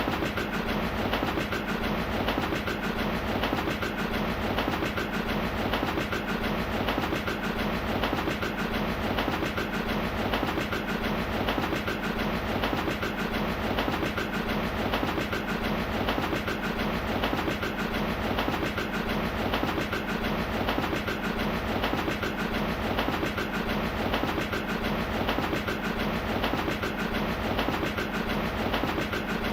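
A train running steadily along the track, its wheels clicking in an even rhythm over the rail joints, with a constant rumble underneath.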